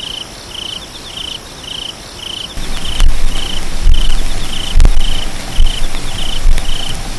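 A high, even chirp repeating about twice a second, with gusts of wind buffeting the microphone from about two and a half seconds in.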